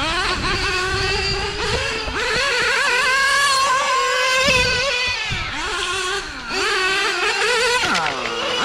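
Nitro engines of RC GT race cars at full throttle, a high buzzing whine that climbs and falls as they accelerate and ease off. The pitch drops twice in the second half, as the cars brake for corners.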